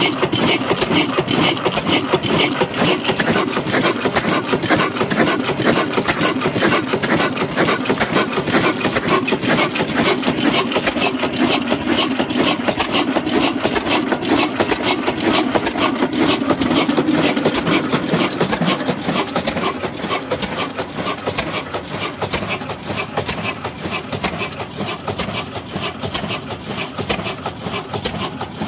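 Old 20 HP single-cylinder stationary diesel engine with a heavy flywheel, running with a steady rapid mechanical clatter, a little quieter over the last third.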